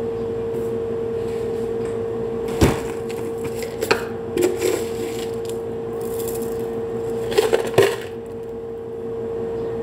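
Sharp knocks and clatter of plastic kitchenware, a food-chopper bowl and lid being handled and set down on the counter: one loud knock about two and a half seconds in, another near four seconds, and a quick cluster of knocks around seven and a half seconds, over a steady hum.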